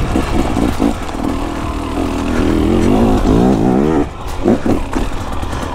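Two-stroke dirt bike engine revving, its pitch rising and falling with the throttle, with a couple of quick blips near the end.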